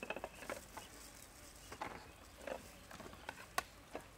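Spoons and dishes clinking faintly as food is served onto plates: an irregular scatter of short clicks and light knocks.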